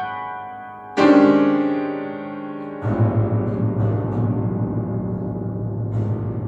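Piano: a loud chord struck about a second in rings out and slowly fades, then from about three seconds in a fast run of repeated low notes in the bass keeps going.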